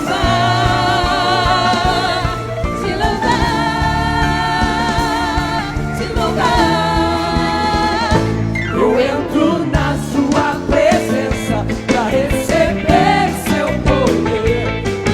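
Gospel worship song sung by a group of voices over a band, the singers holding long notes with vibrato. About eight seconds in the held notes end and the music moves into a busier passage.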